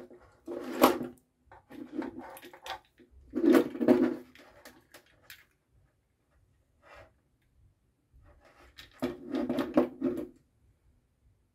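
Handling noise from electrical parts on a desk: cables rustling and dragging, and plastic-and-metal pushbutton units knocking as they are picked up and set down. The knocks and rustles come in short irregular bursts with quiet gaps, the loudest about a second in, around four seconds in and near the end.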